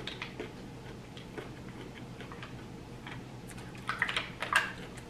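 Mussel shells clicking against each other and the glass dish as long fingernails pick through a pile of cooked mussels: scattered light clicks, coming thickest a little before the end.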